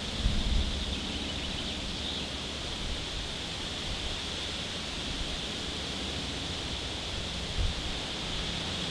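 Steady outdoor background hiss with a high, even tone running through it, and a couple of faint knocks, one just after the start and one near the end.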